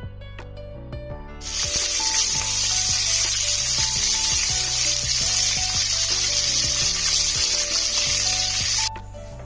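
Food sizzling as it fries in hot oil: a loud, even hiss that starts suddenly about a second and a half in and cuts off abruptly near the end, with background music throughout.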